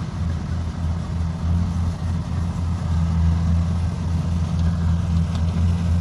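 Kubota DC-70X combine harvester's diesel engine running steadily under load as the machine cuts and threshes rice, a steady low drone.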